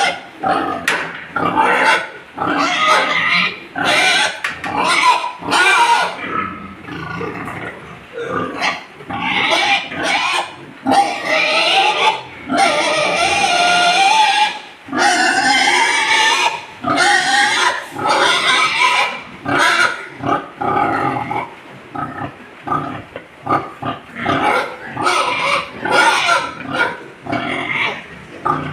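A boar grunting over and over in short, quick calls, with a few longer drawn-out squeals about halfway through.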